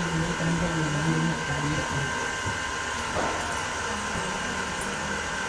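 A man's low voice chanting on flat, held pitches, over a steady whirring hum with a thin high whine.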